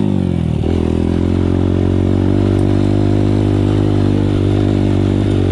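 Dirt bike engine running as the bike rides along a rough gravel lane: the revs drop in the first half second, then hold steady. Wind blows on the open microphone.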